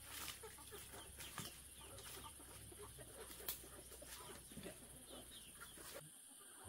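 Chickens clucking faintly, with a few sharp clicks among the calls.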